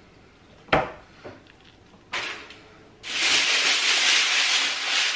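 Kitchenware knocked on the countertop: a sharp clatter under a second in and another knock around two seconds. About three seconds in, a kitchen tap is turned on and water runs steadily into the sink.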